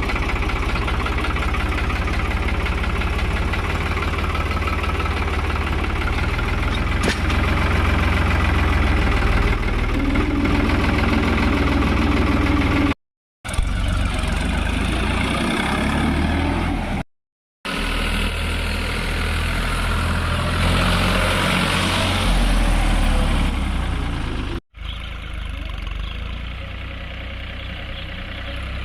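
Tractor diesel engine running steadily with a deep low rumble, the sound dropping out to silence three times for a moment at joins between clips.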